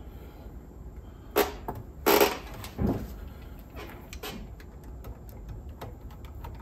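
Small screws and a screwdriver clicking and knocking as a part is screwed onto a cassette deck's tape transport: a few sharp knocks in the first three seconds, the loudest a short clatter a little after two seconds, then scattered faint ticks.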